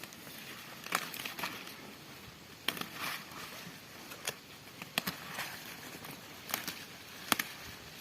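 Leafy greens being picked by hand: rustling leaves, with about half a dozen sharp snaps as leaves are broken off the plants, the loudest near the end.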